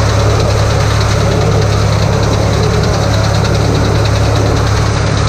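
Tractor engine running steadily while it pulls and drives a round baler making hay bales, a constant low hum with the baler's machinery turning underneath.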